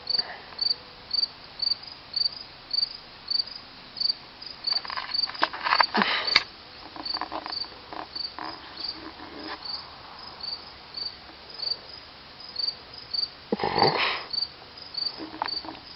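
A cricket chirping steadily, short high chirps about two a second. Two brief, louder noises break in, about six seconds in and near the end.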